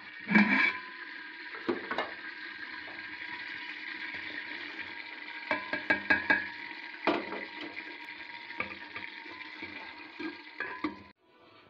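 Chopped onions frying in hot oil in a metal pot, a steady sizzle with clinks and knocks of a spoon and plate against the pot, most of them bunched about halfway as the onions go in and are stirred. The sizzle cuts off suddenly near the end.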